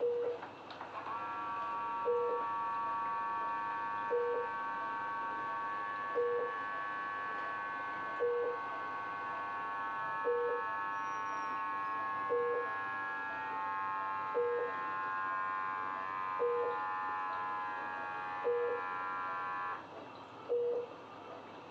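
ICU bedside monitor alarm beeping, one short mid-pitched beep about every two seconds. Over it, a steady whine of several high tones starts about a second in and cuts off suddenly near the end.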